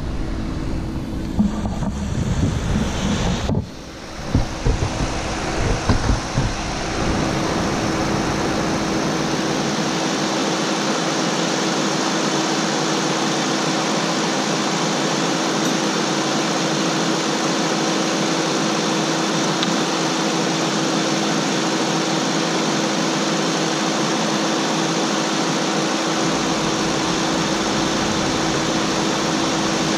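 Wind buffeting the microphone for the first few seconds, then a steady, unchanging whir with a low hum from the open engine bay of a 2004 Cadillac DeVille, as of the car running with its fan going.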